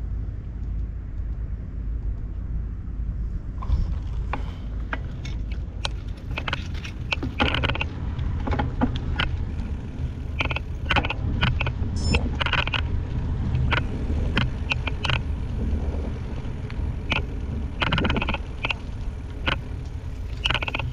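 Mountain bike rolling along a concrete-slab cycle path: a steady low rumble of tyres and wind on the microphone, with frequent clicks and rattles as the bike jolts over the slab joints.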